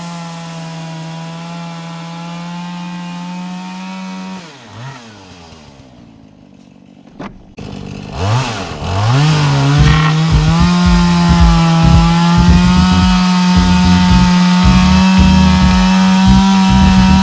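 Chainsaw's two-stroke engine running at high revs, dropping back to idle about four seconds in, then revving up again around eight seconds and running loud and steady at full throttle as it cuts through a wooden floor joist.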